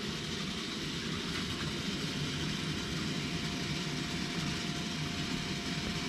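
Steady running-water noise of a still's recirculating cooling water, flowing through the hoses and back into its reservoir, with a faint steady tone underneath.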